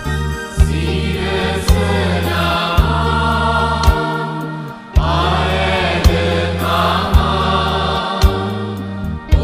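Sinhala hymn: voices singing over sustained bass notes and a steady beat about once a second, with a short dip before a new phrase about halfway through.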